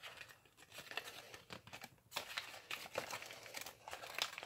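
Faint crinkling and rustling of origami paper being folded and pressed by hand, in short irregular crackles.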